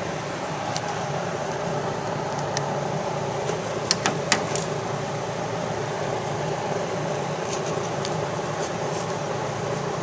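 Steady background hum, with light clicks as a metal seatbelt adjuster bracket is handled against the steel chassis tube; the three sharpest come close together about four seconds in.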